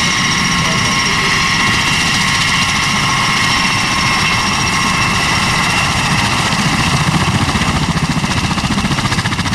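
Bell Boeing MV-22 Osprey tiltrotor taxiing with its nacelles upright and proprotors turning. The steady whine of its two Rolls-Royce T406 turboshaft engines sits over a low rotor beat. The whine eases about halfway through while the blade beat grows stronger and more pulsing as the aircraft swings round to face the microphone.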